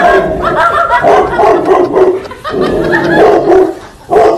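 A large dog barking repeatedly in loud, pitched bursts.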